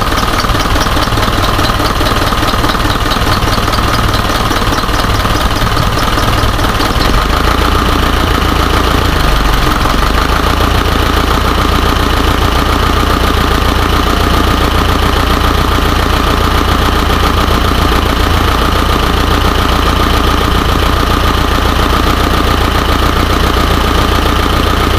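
Isuzu 4HJ1 four-cylinder diesel engine running and being revved gently, its note shifting about seven seconds in. It is misfiring, the cause of its low power.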